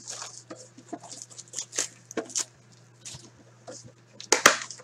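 A Premier hockey card box being handled and opened by hand: scattered crinkles and clicks of its wrapping and cardboard, with a louder burst of crackling near the end.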